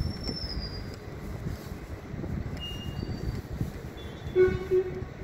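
Wind rumbling on the microphone over outdoor background noise, with a few faint high chirps. Near the end comes a short horn toot in two quick parts, the loudest sound.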